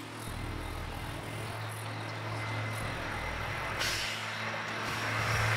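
Motor vehicle engine running with a steady low hum; about four seconds in, a louder hiss rises and builds.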